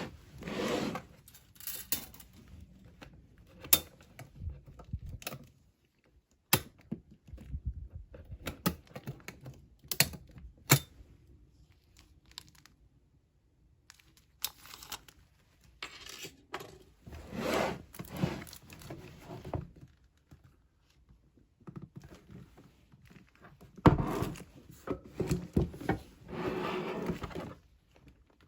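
Packaging being handled and pulled apart during an unboxing: irregular rustling and tearing, broken by several sharp knocks of parts being set down.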